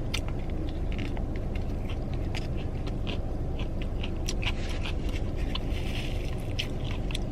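A person chewing bites of a spicy fried chicken sandwich, with small crunches and mouth clicks scattered throughout over a steady low background hum.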